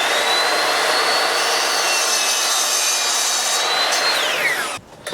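Table saw running and cutting wood trim: the motor's high whine settles at full speed about a second in and holds through the cut, then winds down and stops near the end.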